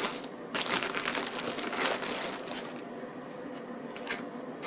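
Sandwich wrapping crinkling and rustling as a baguette sandwich is handled and pulled from it, busiest in the first half, then quieter with a few light clicks.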